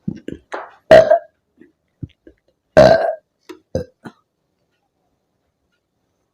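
A woman burping loudly after chugging carbonated lemon soda. Two big burps come about a second and three seconds in, the second the longest, with shorter, quieter sounds around them.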